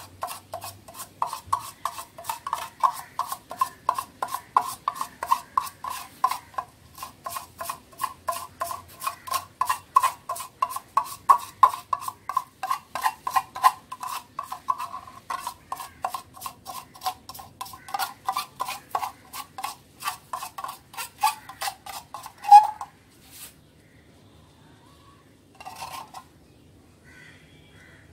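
A thin stick stirring orange screen-printing ink in a small metal tin, scraping round the inside at about four strokes a second with a ringing rasp from the tin. The stirring stops with one sharp knock about three-quarters through, followed by a couple of faint knocks.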